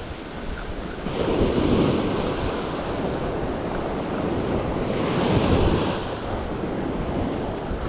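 Small surf breaking and washing up a sand beach, surging twice, with wind buffeting the microphone.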